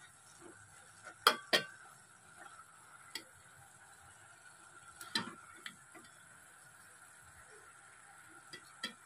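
Metal ladle stirring a bean and tomato curry in an aluminium pot, clinking sharply against the pot: two loud knocks about a second in, a single one near three seconds, a loud one around five seconds followed by two lighter ones, and two more near the end. A faint steady tone and hiss lie underneath.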